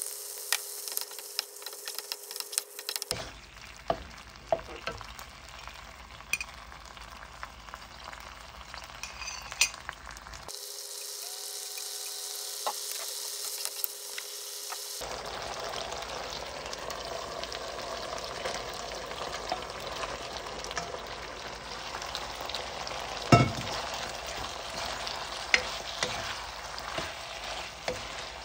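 Ground meat, sauce and fried eggplant sizzling in a nonstick wok while a wooden spatula stirs and scrapes through them. Sharp clacks of the spatula against the pan come now and then, the loudest about two-thirds of the way through.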